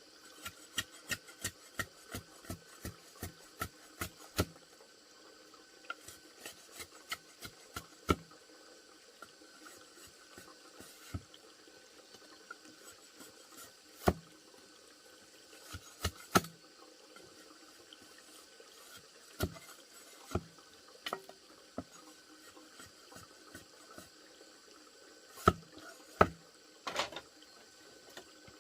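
Sharp knocks of hand work, likely on wood: a quick, even run of about three strikes a second for the first few seconds, then scattered single knocks and pairs.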